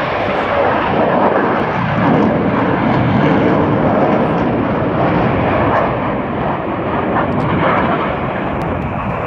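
Several jet aircraft flying overhead in formation: a loud, steady jet engine noise that eases off a little near the end.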